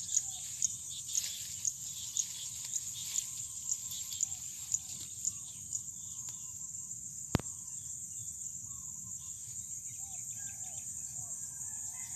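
Birds chirping repeatedly over a steady high insect drone, with short soft calls lower down. A single sharp click comes about seven seconds in.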